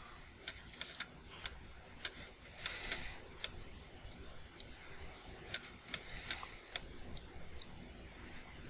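Scattered single clicks of a computer mouse and keyboard, over a dozen sharp clicks at irregular intervals, with a clickless stretch in the middle and near the end.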